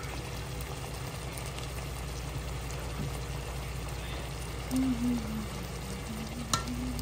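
Chicken curry simmering in a pot, a steady low bubbling as cream is spooned over it, with one sharp click about six and a half seconds in.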